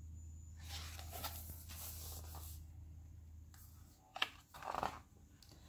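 Paper rustling and sliding as the pages of a large hardcover picture book are turned and the book is handled, with a sharp tap about four seconds in and a short rustle just after.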